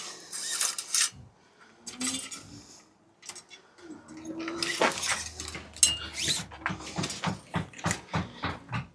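Spanner working a 9 mm bolt on a bicycle derailleur, with metal tools and bike parts clinking and rattling and a few short squeaks.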